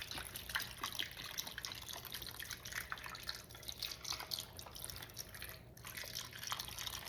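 Beef broth poured over raw potatoes in a pan, splashing and dripping in many small, irregular drops, with a short lull near the end.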